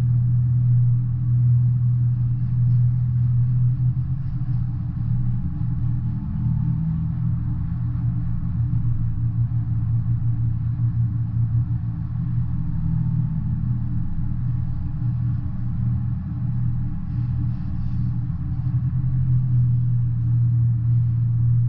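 Double-stack container freight train rolling past, its cars and wheels making a steady low rumble, heard through a window.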